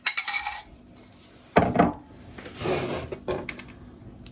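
A knife scraping buttercream out of a glass mixing bowl, one sharp knock about a second and a half in, then softer rubbing and scraping with a few light clicks as a small knife works buttercream over the cake.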